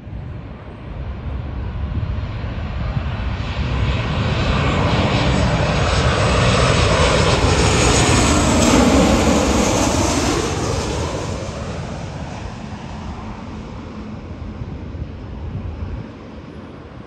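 Airliner flying past at an airport: its engine noise builds over several seconds to a loud peak a little past the middle, then falls in pitch and fades as it moves away.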